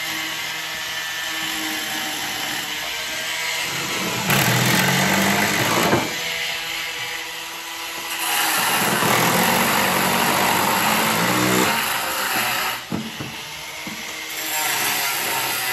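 Cordless drill and other power tools working on flat roof tiles, running in loud bursts of a few seconds, with a motor note rising and falling under the noise.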